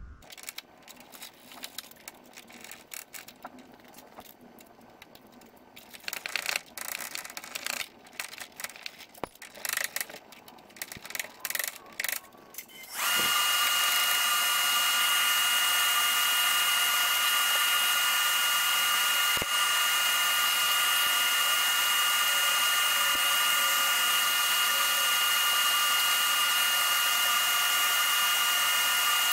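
Faint clicks and rattles of brake and fuel line clips being worked loose from the frame. About 13 seconds in, a steady machine noise with a hiss and a constant whine starts and runs on without change.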